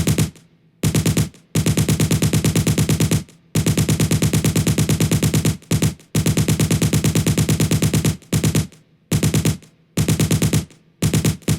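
Machine gun firing in bursts of rapid shots, about a dozen a second; the bursts run from about half a second to two seconds, with brief pauses between them.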